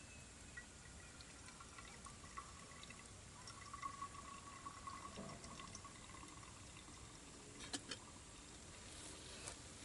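Faint sound of liquid being poured, with a few thin tones, and a couple of sharp clicks near the end.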